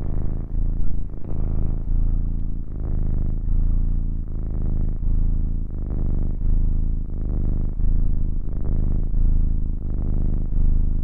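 Tabby kittens purring close to the microphone: a steady low buzz that swells and eases about once a second.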